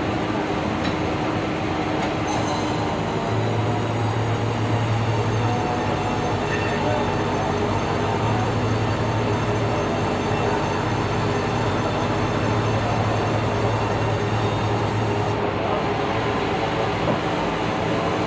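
Sawmill band saw running steadily, its blade cutting through a yellow meranti log: a loud, even machine noise over a low hum. A high whine comes in about two seconds in and drops away near the end.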